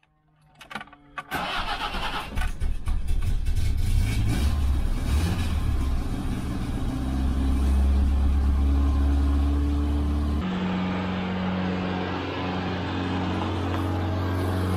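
A car engine starts after a few short clicks about a second in, then runs steadily; the sound changes abruptly about ten seconds in.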